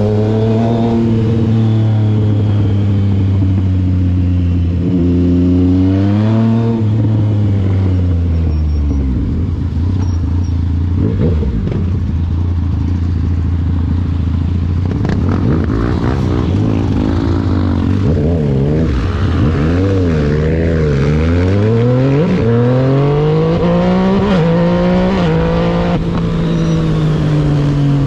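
Yamaha MT-09's inline three-cylinder engine on the move, its pitch rising and falling with the throttle: steady for a while, then low and even for several seconds, then several quick swings up and down and a long climb near the end.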